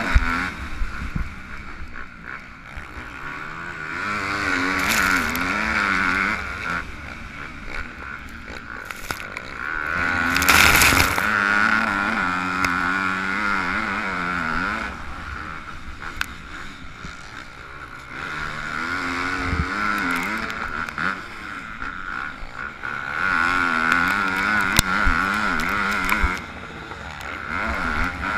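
Yamaha YZ250F single-cylinder four-stroke motocross engine running hard under the rider, its pitch climbing and dropping in repeated surges as the throttle is worked. Wind rumble over the onboard microphone.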